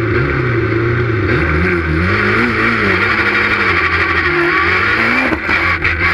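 Citroën Saxo S1600 rally car's engine running under the driver's feet, heard from inside the cockpit, its revs rising and falling as the pedals are worked. About five seconds in, the revs climb and then break off sharply.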